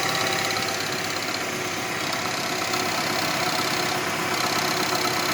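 Renault Mégane II engine idling cold with a steady, fast metallic rattle from a loose exhaust manifold heat shield, a knock that shows only while the engine is cold.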